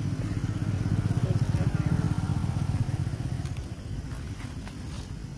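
Low engine rumble of a passing motor vehicle, growing louder over the first second or two and fading away after about three seconds.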